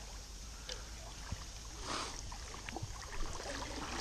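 Water splashing and sloshing as a hooked smallmouth bass thrashes at the surface and is landed in a net beside a wading angler, over the steady sound of the flowing creek; the biggest splash comes about two seconds in.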